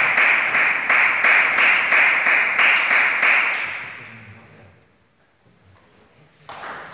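Rhythmic clapping, about three claps a second, fades away a little past halfway. Near the end comes a sharp tap of a table tennis ball being served.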